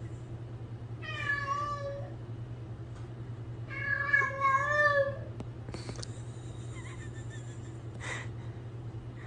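Domestic cat meowing twice, about a second in and again about four seconds in, over a steady low hum.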